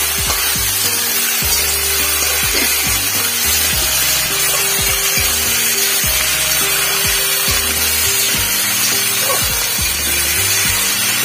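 Metal spatula scraping and stirring chunks of taro and potato in a metal kadai, over background music with a stepping bass line.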